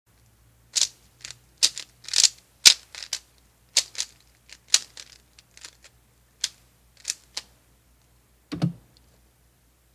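A 3x3 speedcube being turned quickly by hand during a speedsolve: flurries of sharp plastic clicks and clacks as the layers snap round, about a dozen quick bursts over several seconds. The turning stops, and a single soft thump follows near the end.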